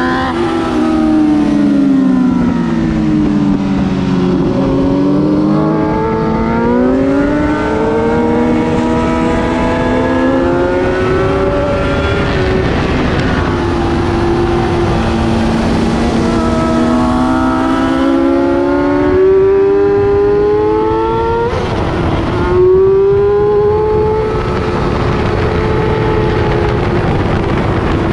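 Sportbike engine heard onboard at speed. Its pitch falls for the first few seconds, then climbs and eases in long sweeps as the rider works the throttle round the track. About 22 seconds in a short rush of noise breaks in, and the engine comes back at a lower pitch and climbs again.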